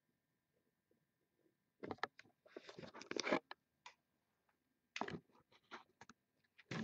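Faint clicking and scraping handling noise in two short clusters, about two seconds in and again about five seconds in, with one more click near the end.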